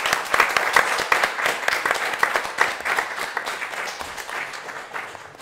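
Audience applauding, many hands clapping at once, dying away gradually over the last couple of seconds.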